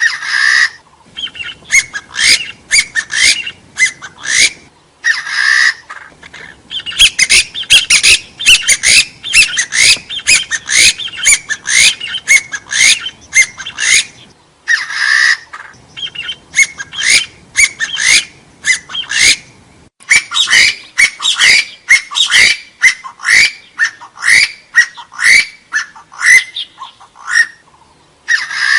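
Hill partridge (gà so) calling: runs of short, rising whistled notes repeated several times a second, building into long rapid series, broken by brief pauses and a few fuller, longer notes.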